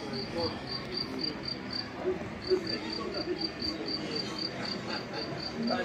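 A high-pitched chirping pulse repeating evenly about four times a second, with a short break about two seconds in, over a murmur of voices.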